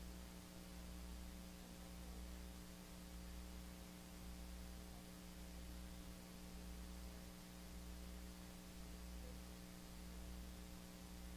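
Faint, steady electrical mains hum with a layer of hiss.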